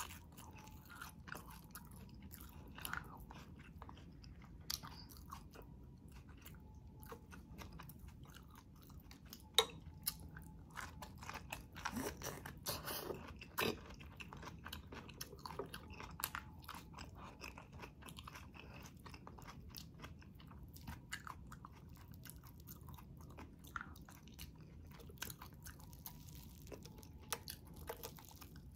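Close-miked chewing of crispy fried milkfish (daing na bangus): soft crunches and wet mouth clicks, with a cluster of louder crunches about twelve to fourteen seconds in.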